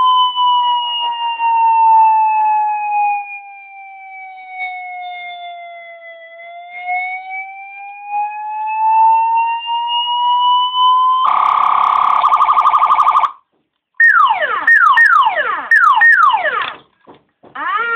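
Electronic BM siren module cycling through its tones: a slow wail that falls and then rises again over about eleven seconds, then a buzzy horn tone for about two seconds, then after a short gap a run of quick falling sweeps from the manual tones.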